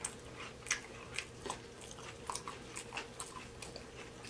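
Close-up chewing of fried seafood: soft crunches and wet mouth clicks at irregular intervals, over a faint steady hum.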